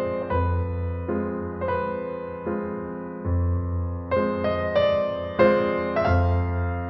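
Gentle keyboard music: slow, evenly struck notes over a held low bass note, with no surf audible.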